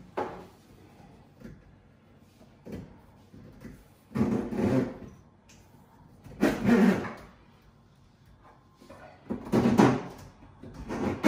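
Bursts of knocking, scraping and rattling as plastic waste-pipe fittings and tools are handled inside an under-sink kitchen cabinet, one burst every second or two, the loudest about four, six and a half and nine and a half seconds in.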